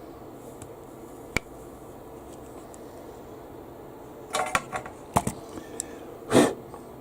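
Small plastic parts of a remote switch unit being handled and fitted together: a single sharp click, then a quick run of clicks and rattles, and a louder short scrape near the end, over a steady low hum.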